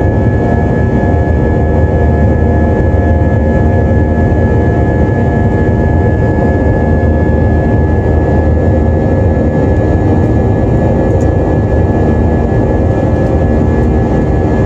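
Jet airliner's turbofan engines heard from inside the passenger cabin during the climb after takeoff. It is a loud, steady low rumble and rush of noise with a constant high whine over it.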